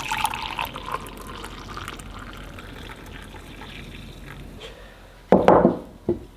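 Coffee poured from a stainless vacuum flask into ceramic mugs, a liquid stream splashing into the cups for the first few seconds. About five seconds in comes a short, louder thump.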